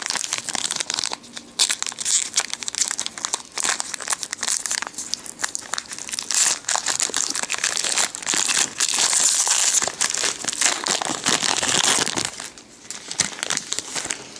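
Foil booster-pack wrapper crinkling and tearing as it is opened by hand: a dense run of crackles, with a short lull near the end.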